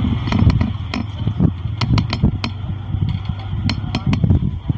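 A steady low rumble under scattered sharp clicks and knocks, the scrapes and snaps of someone climbing a mango tree and handling its branches.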